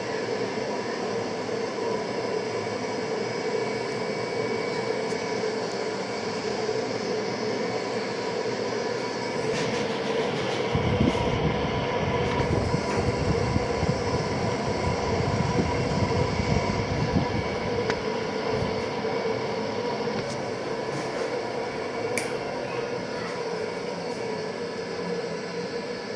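Royal 36-inch ceiling fan running at speed, a steady, very loud whir with a constant hum. About eleven seconds in, a deeper rumble joins for some eight seconds.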